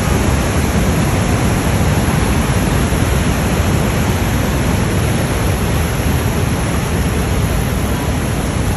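Niagara Falls and the river rapids at its brink rushing: a loud, steady, unbroken noise of falling and churning water.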